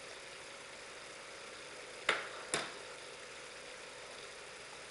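Visible V8 model engine test rig running steadily during the run-in of a new crankshaft, a low even hum with a faint constant whine. Two sharp clicks about two seconds in, half a second apart.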